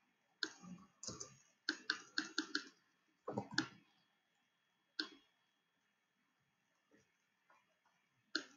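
Computer mouse clicking while parts are selected and moved in a 3D drawing program: sharp separate clicks, a quick run of several around two seconds in, a heavier knock a little past three seconds, then single clicks about five seconds in and near the end.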